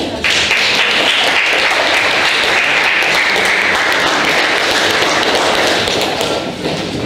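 Audience applauding in a hall: dense clapping that starts suddenly just after the start and dies away near the end.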